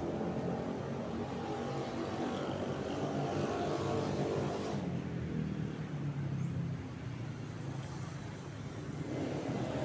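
Motor vehicle engines from nearby road traffic, a steady running noise that eases off about halfway through and builds again near the end.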